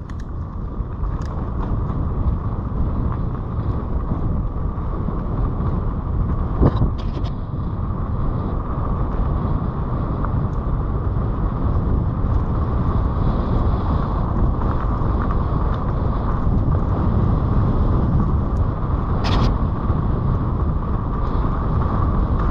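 Mountain bike riding fast down a dirt track, heard from a helmet-mounted microphone: a steady rush of wind buffeting the mic over the rumble of knobby tyres on dirt. There are a couple of sharp clicks, one about seven seconds in and another a few seconds before the end.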